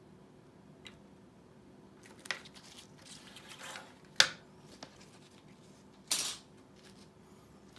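Small tools and parts being handled on a work surface during a headset repair: a few light clicks and a rustle, a sharp click about four seconds in, and a short scrape or snip about six seconds in.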